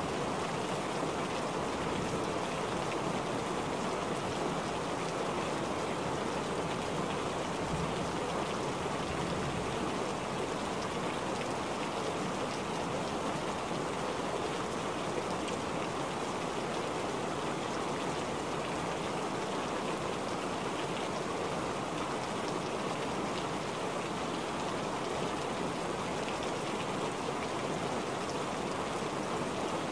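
Steady rain falling, a dense even hiss of countless drops without a break.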